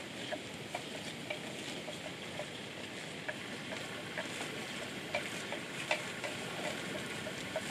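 Water buffalo grazing, tearing and chewing grass in short, crisp crackles that come at uneven intervals, over a steady hiss.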